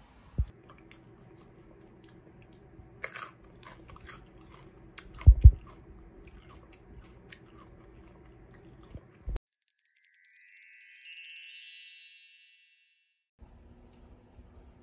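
Crunchy bites and chewing of a raw eggplant-chili pepper, with scattered clicks and a couple of knocks from handling. About ten seconds in, a high, sparkling chime sound effect plays for around two and a half seconds and cuts to a moment of dead silence.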